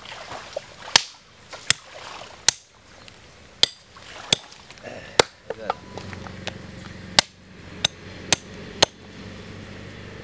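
Sharp blows struck at an irregular pace of roughly one a second, like a blade or pounder coming down hard on a solid block.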